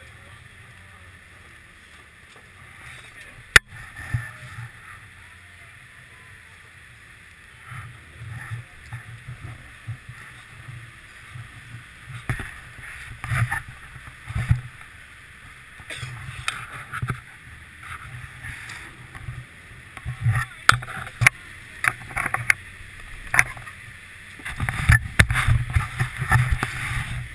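Chairlift running through its terminal, heard from a camera mounted on the chair: a steady low rumble with irregular clunks and knocks that come thicker toward the end, and one sharp click about three and a half seconds in.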